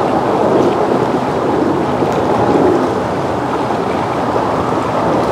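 Steady rushing noise of wind-driven, choppy lake water splashing around a floating dock, with a motorboat's engine running under it as the boat moves off.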